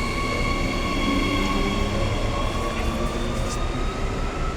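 Queensland Rail SMU electric multiple-unit train pulling away, its traction motors giving a steady whine that rises slowly in pitch as it gathers speed, over a low rolling rumble.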